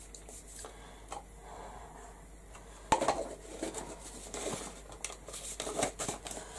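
Handling noises from craft supplies on a desk: faint clicks at first, then a sharp knock about three seconds in and a run of light knocks and rustling as a small jar is picked up and handled along with a paintbrush.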